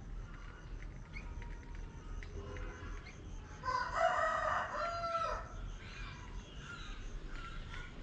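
A rooster crows once, about four seconds in, for under two seconds, over scattered short chirps of small birds.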